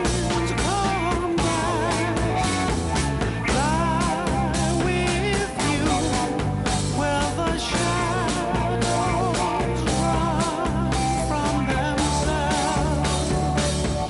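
A 1960s pop record playing: a passage with a wavering lead melody over steady bass and chords, without clear words.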